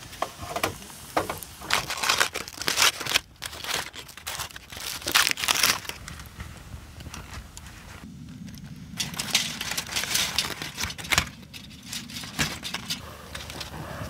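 Aluminium foil crinkling in irregular bursts as a foil-wrapped food packet is unwrapped by hand.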